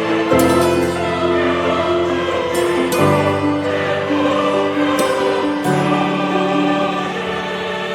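Background music with held choir-like chords that change every few seconds.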